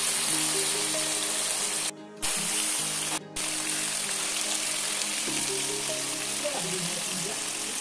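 Chicken pieces and onions frying in a wok with a steady sizzle that cuts out briefly twice.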